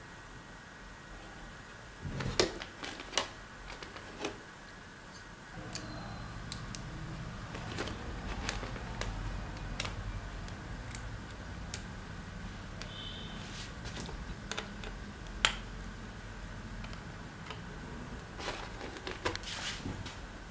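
Hands handling a laptop motherboard and small parts while a screwdriver works on the board: scattered sharp clicks and knocks, the loudest about two seconds in and again about fifteen seconds in. A low steady hum starts about five and a half seconds in.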